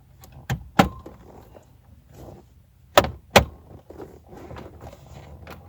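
Plastic interior trim panels of a 1999 Chevrolet Malibu being fitted back on by hand: two pairs of sharp snaps as the pieces click into place, about two and a half seconds apart, with light handling rustle between.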